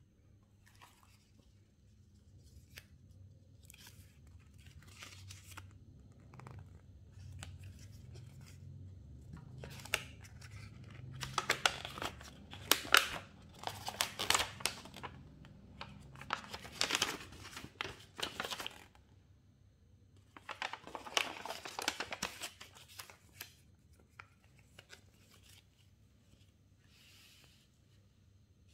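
Thin paper instruction leaflet being unfolded and handled, rustling and crinkling in irregular bursts with sharp crackles. The rustling is loudest in two stretches around the middle, with quieter handling before and after.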